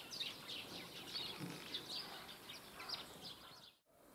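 Small birds chattering: many faint, short chirps overlapping, stopping abruptly near the end.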